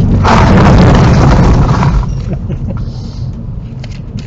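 Rally car engine running inside the cabin, with a loud rush of road and tyre noise for about the first two seconds. The noise then drops away sharply, leaving a quieter, lower engine sound as the car slows down.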